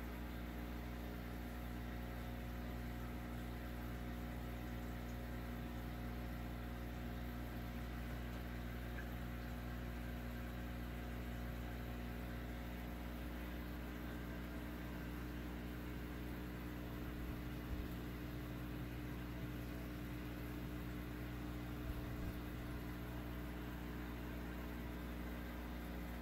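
Aquarium equipment running with a steady electrical hum and whir made of several fixed low tones. Two brief faint knocks come about two-thirds of the way through and again a few seconds later.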